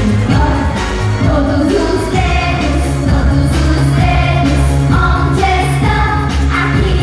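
Pop song played loud through a PA system: a girl's sung lead vocal over a backing track with a heavy bass line.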